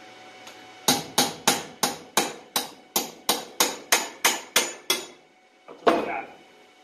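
A hammer tapping a tool wedged into the seam of a vintage Ski-Doo Rotax engine's crankcase, splitting the two halves apart: about a dozen quick, even taps, roughly three a second. A single heavier knock follows about a second later.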